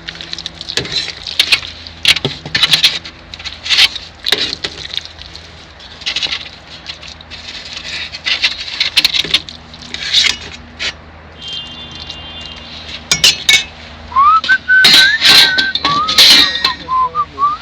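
Repeated sharp clinks and knocks of small hard objects being handled, over a steady low hum. Near the end, a run of short whistled notes, several rising in pitch.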